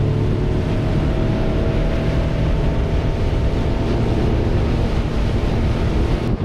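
Mercury F100 four-stroke outboard running steadily as the boat travels at speed, with the rush of water from the wake and wind buffeting the microphone.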